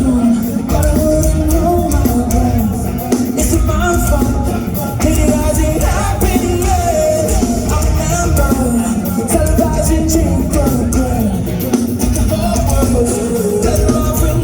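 Live rock band playing loudly with a lead vocalist singing over heavy drums and bass.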